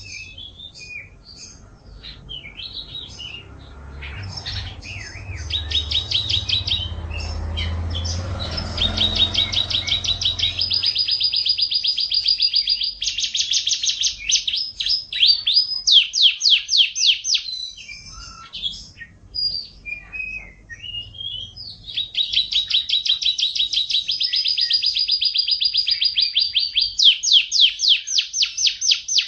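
Canary singing a long song of rolling trills: runs of rapid, evenly repeated notes, some fast and some slower, broken by shorter chirps. A low rumble sits underneath during the first third.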